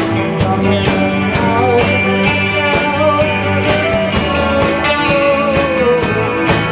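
Rock band playing a cover song: drums keep a steady beat under guitars and bass, with a wavering melody line on top.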